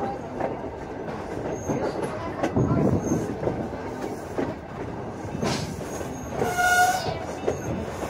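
Passenger train pulled by Norfolk and Western steam locomotive No. 475, heard from inside a coach: steady rumble and clacking of the wheels over the rail joints. A short high tone sounds about six and a half seconds in.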